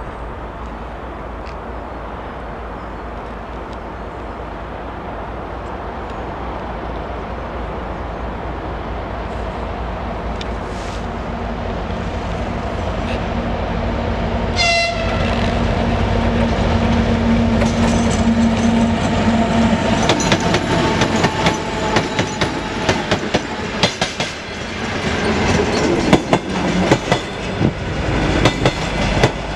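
2M62 diesel locomotive approaching with its engines running and growing louder, sounding its horn about halfway through. The track-machine cars then pass close by, wheels clicking over the rail joints.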